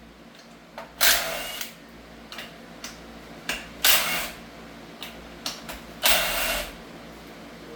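Tools and engine parts being handled: three short, loud, noisy bursts about two and a half seconds apart, with light clicks between them.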